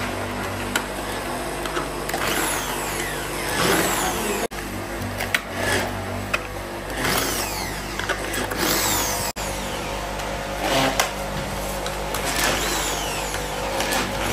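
Steady electric motor hum of workshop machinery, with light clicks of plastic parts being handled and fitted together. Quick high falling chirps repeat over the hum.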